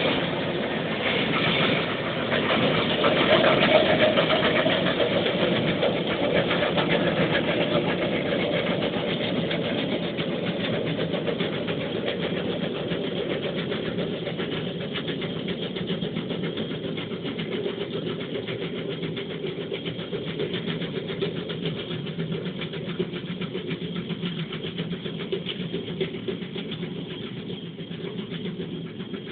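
Zetor 7341 Super Turbo tractor's turbo diesel engine running steadily under load while pulling a Pronar Z500 round baler. The sound is loudest about three seconds in, then slowly fades as the tractor and baler move away.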